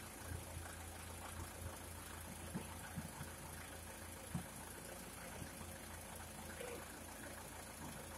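An engine idling steadily, with a few sharp knocks and clunks from a car-carrier truck's tilted deck as a sports car moves up onto it.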